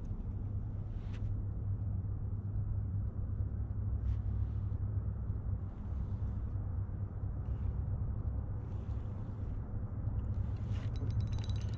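Steady low rumble with faint, scattered clicks and rustles from handling a fishing rod and reel, and a quick run of clicks near the end.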